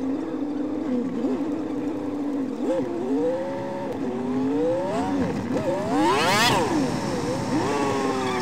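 Car engine heard from inside the cabin, holding a steady note and then revving up and down repeatedly as the car pulls away and changes gear. The sharpest rise and fall comes about six seconds in.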